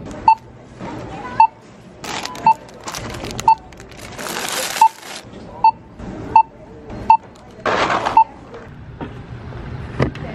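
Checkout barcode scanner beeping as items are scanned: about nine short beeps, all of the same pitch, at irregular intervals. Between the beeps come bursts of rustling from the items being handled.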